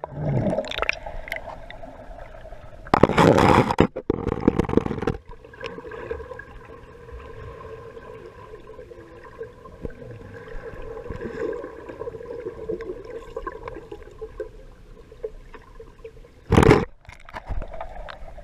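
Swimming-pool water heard with the camera held in or under it: muffled gurgling and water movement over a steady hum, with loud splashing for a couple of seconds about three seconds in and a short splash near the end.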